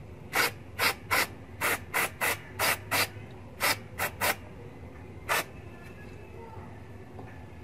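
Aerosol can of carburetor cleaner sprayed through its thin extension straw onto a spark plug to wash carbon off it: about a dozen short, separate spurts, each a fraction of a second. The spraying stops about five seconds in.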